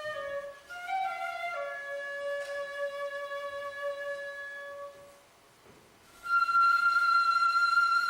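Flute playing slow, held notes, breaking off about five seconds in. After a short silence it comes back louder on a high held note that edges up in pitch near the end.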